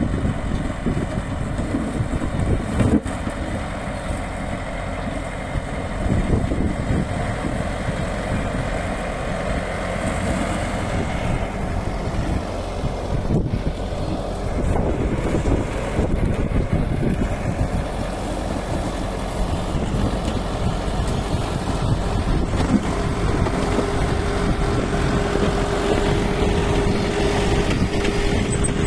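McCormick TX 4.55 bulldozer's engine running with a continuous low rumble; a steady hum comes in about three quarters of the way through.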